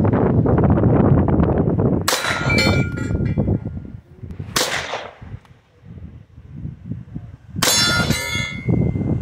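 Three shots from an 1892 Winchester lever-action rifle, about two and a half seconds apart, each hitting steel knockdown targets. The first and last hits leave the steel ringing. Wind rumbles on the microphone between shots.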